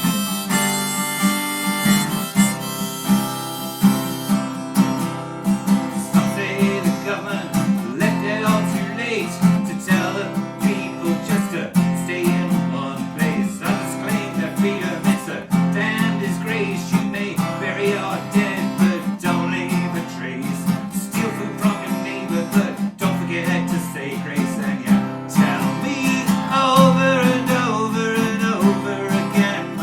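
Acoustic guitar strummed in a steady rhythm, with a harmonica playing a bending melody over it.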